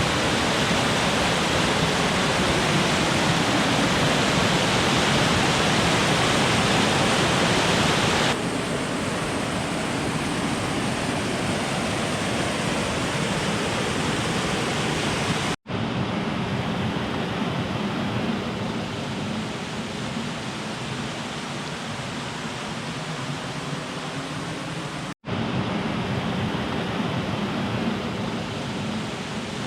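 Veterans Falls rushing steadily, a dense roar of falling water. It steps down in loudness about eight seconds in and cuts out for an instant twice, near fifteen and twenty-five seconds in.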